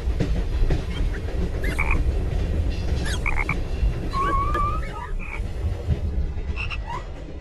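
Steady low rumble of a moving steam train from the Hogwarts Express carriage set's soundtrack, with short high squeaks and chirps over it and a wavering tone about four seconds in.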